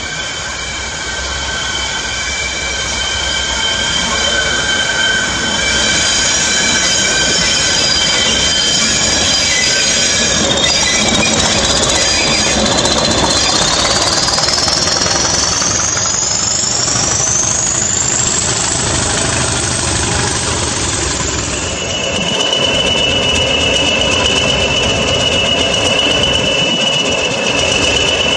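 Wheel flanges squealing on a sharp curve as a pair of class 20 diesel locomotives pass, with their engines running underneath. Several steady high squeal tones are heard; one rises in pitch through the middle, then a different steady squeal takes over near the end.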